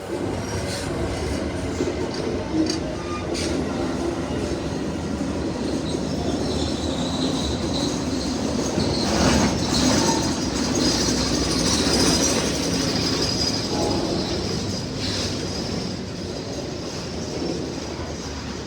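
Auto Train cars rolling past on the rails: a steady wheel rumble with scattered clicks over rail joints and a thin wheel squeal now and then.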